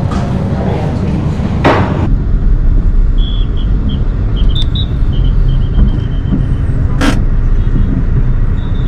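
Steady, loud rumble of a road vehicle on the move, with wind noise, two brief whooshes and a string of short high beeps in the second half.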